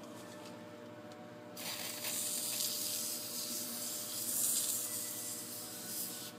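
Aerosol can of rust penetrant spraying onto a rusted wheel bearing: a steady hiss that starts about a second and a half in and stops just before the end.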